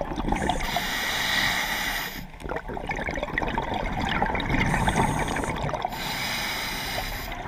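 Scuba diver breathing through a regulator underwater: a hiss of inhaled air about a second in and again near the end, with a long bubbling gurgle of exhaled air between.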